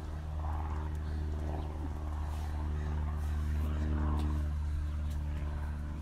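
A motor vehicle's engine running nearby: a steady low hum that swells to its loudest about four seconds in and then eases off, with a few faint short higher sounds over it.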